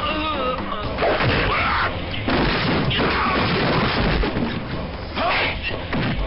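Action-film fight sound effects: repeated heavy impacts, crashes and booms, mixed with shouting voices.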